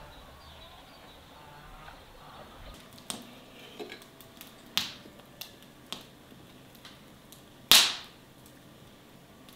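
Irregular sharp taps and knocks, about half a dozen spread over several seconds. The loudest comes near the end and has a short ringing tail.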